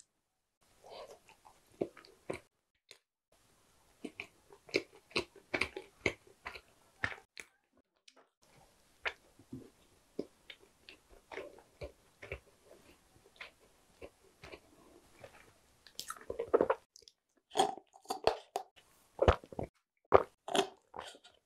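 Close-miked chewing of a small baked pastry, with many short crunchy clicks and wet mouth sounds. Near the end, louder sips of a drink through a straw.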